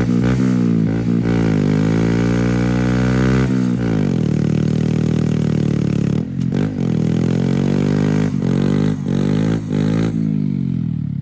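Small motorcycle engine revving up and down as it is ridden through the gears, with short drops in pitch at the shifts. Near the end the engine sound falls away as the bike slows.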